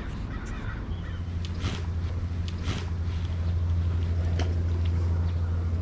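A steady low engine hum that grows a little louder about a second in and then holds, with a few faint ticks over it.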